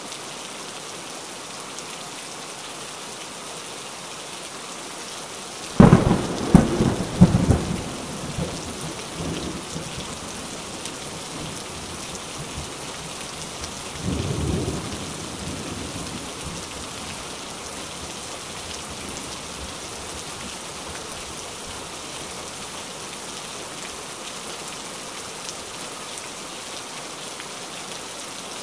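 Steady heavy rain with thunder: a sudden loud thunderclap about six seconds in, several sharp cracks that fade into a rumble, and a second, quieter rumble of thunder about fourteen seconds in.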